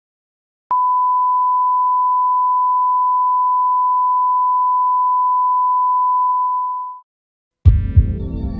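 Steady 1 kHz line-up test tone, the reference tone that goes with colour bars, holding one pitch for about six seconds before fading out. Near the end, music starts with heavy low beats.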